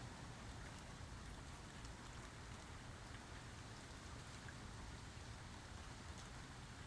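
Steady, faint rain falling, an even hiss with scattered tiny drop ticks; no thunder.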